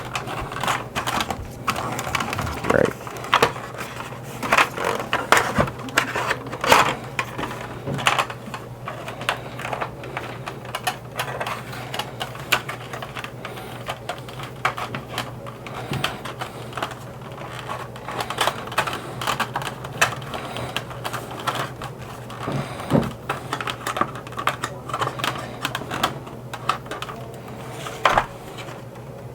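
Old hard plastic of a 1983 G.I. Joe Skystriker toy jet's shell clicking and cracking irregularly as its locking tabs are pried apart with plastic trim tools, over a steady low hum.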